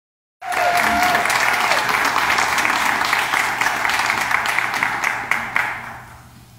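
Theatre audience applauding, a dense patter of many hands clapping that starts suddenly about half a second in and dies away near the end.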